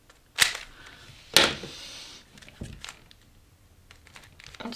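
YJ Guanlong 3x3 speedcube being turned by hand. Two sharp clacks of the layers snapping about a second apart, the second followed by a brief scraping turn, then a few fainter clicks. The turning feels gritty, which the owner calls "really sandy", as if something like sand were inside.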